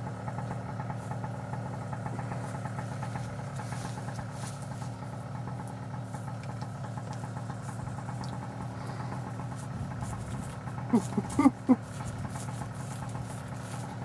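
A small engine runs steadily at idle. About eleven seconds in, a brief cluster of short, loud, swooping cries rises over it.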